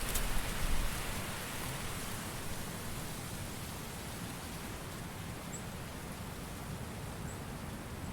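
A gust of wind dies away about a second in, leaving a steady, even hiss of wind.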